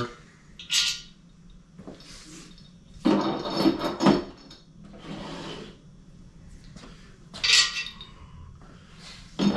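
Small-block Chevy main bearing caps being set down one at a time on a table: several separate clunks and clatters of metal parts a few seconds apart, with quieter handling between.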